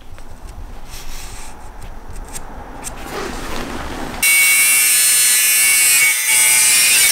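DeWalt angle grinder with a thin cut-off disc cutting through aluminium angle bar clamped in a vice. The loud, high-pitched cutting starts suddenly about four seconds in and dips briefly near six seconds. Before it there is quieter rubbing and handling of the metal bar.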